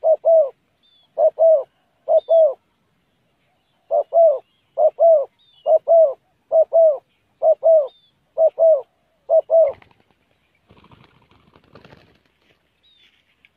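Spotted dove cooing: a quick run of low, paired coos repeated about once a second, stopping about ten seconds in. Faint rustling follows.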